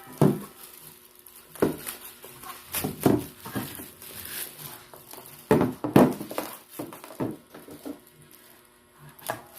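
Plastic packaging rustling and crinkling, with irregular light knocks, as small desktop speakers are unwrapped and handled.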